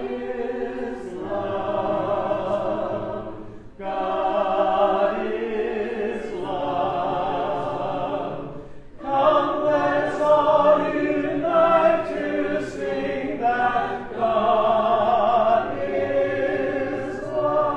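Church congregation singing a hymn a cappella, many voices together without instruments, with short breaks between lines about four and nine seconds in.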